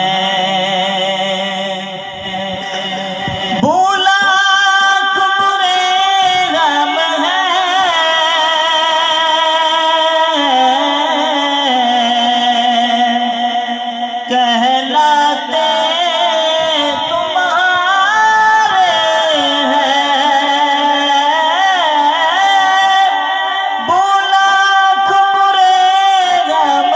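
A man's voice singing a naat through a microphone and PA, drawing out long, wavering melodic notes without clear words. The line rises higher and louder about three and a half seconds in.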